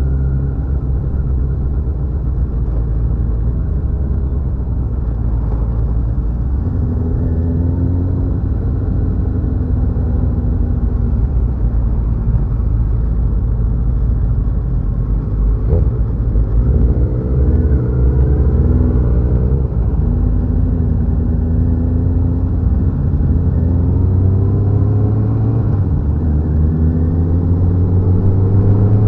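Many motorcycles riding by in a group: a continuous low engine rumble, with several engine notes overlapping and rising and falling as bikes pass and pull away.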